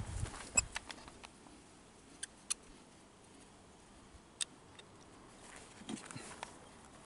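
A few scattered small clicks and taps of a screwdriver working on a motorcycle carburettor, with quiet between them.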